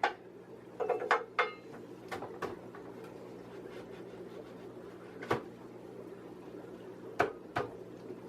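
Scattered knocks and clatter of wooden rack boards and tools being handled and shifted into place, with a cluster of quick knocks about a second in and single sharp knocks later.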